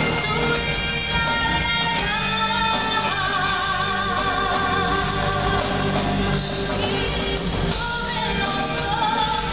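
Live rock band playing, with a singing voice over guitars, bass and drums.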